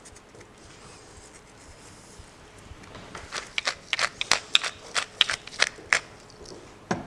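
Hand pepper mill being twisted to grind pepper: a quick, irregular run of sharp clicks, a few a second, starting about three seconds in and lasting about three seconds, with one more click near the end.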